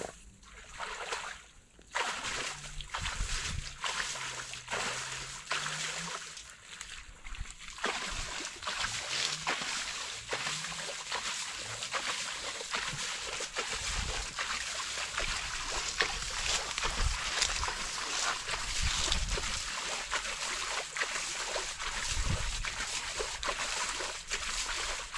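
Splashing and rustling of movement through wet, harvested rice-field stubble, with many small crackles throughout.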